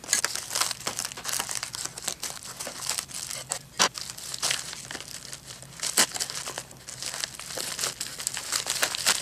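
Plastic bubble mailer crinkling and crackling as it is slit along its edge with a utility knife and pulled apart, with a couple of sharper snaps about four and six seconds in.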